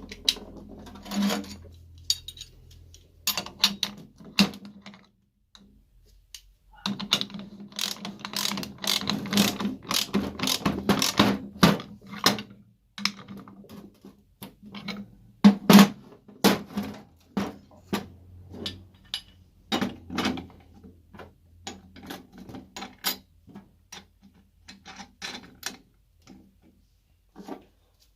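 Metal winch parts clicking and knocking as they are handled, in irregular clusters of sharp clicks that are busiest about a quarter to halfway through, over a faint steady hum.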